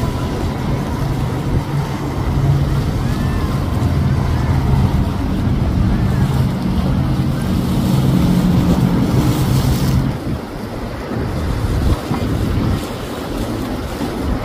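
Outboard-powered center-console motorboats running fast through the inlet: a steady low engine drone over the rush of hull and wake on the water, with wind on the microphone. About ten seconds in the engine drone fades, leaving mostly wind and water noise.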